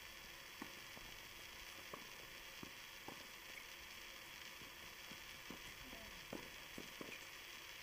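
Faint, distant tennis ball strikes on racquets during a doubles rally: about eight irregular pops over a steady hiss.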